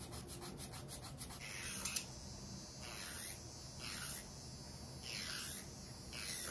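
Acrylic nails being filed: quick rasping file strokes, about seven a second, for the first second or so, then slower swishing strokes about once a second.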